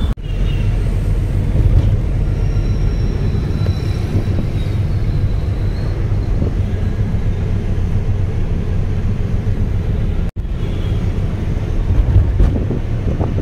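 A moving vehicle: steady engine and road rumble with wind buffeting the microphone, broken by a brief sudden dropout about ten seconds in.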